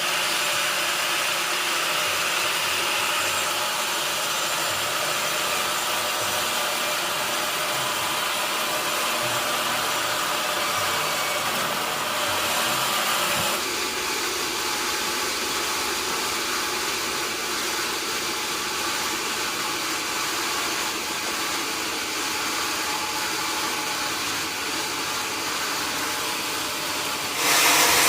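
Sawmill machinery running with a steady whirring hiss. The sound changes slightly about halfway through and gets louder just before the end.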